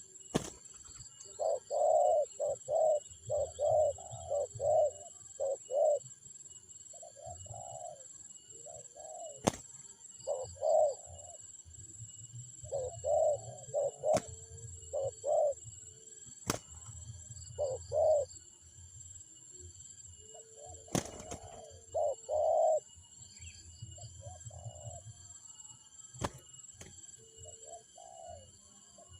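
Spotted doves cooing: phrases of several low, rounded coo notes repeating every few seconds. A few sharp clicks break in, and a faint high chirping runs behind.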